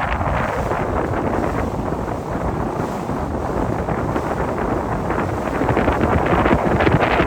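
Wind buffeting the microphone over the steady rush of a motorboat under way, engine and water noise blended together.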